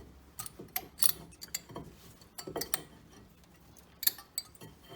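Light, irregular metallic clicks and clinks of brake pads and their steel anti-rattle plates being fitted back into a front disc-brake caliper, with a sharper click about a second in and again near four seconds.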